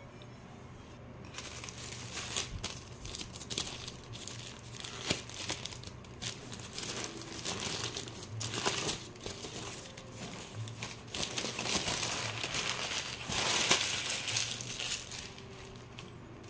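Paper bread wrapper being unwrapped and crumpled by hand, crinkling irregularly for most of the time and loudest near the end.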